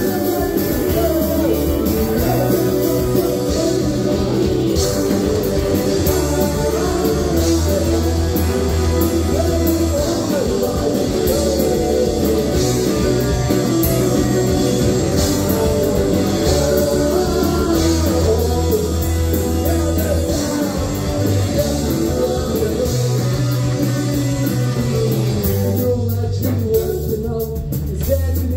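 Live rock band playing loud, with electric guitars, bass and drums under a sung vocal.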